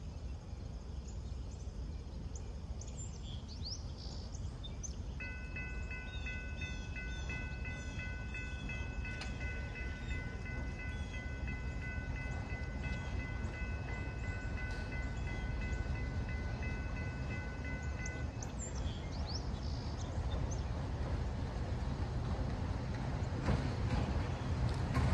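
An approaching MLW RS18u diesel locomotive: its air horn sounds one long blast, a steady chord of three notes, starting about five seconds in and held for about thirteen seconds. Under it the low rumble of the locomotive grows steadily louder as it draws near, with a few bird chirps around it.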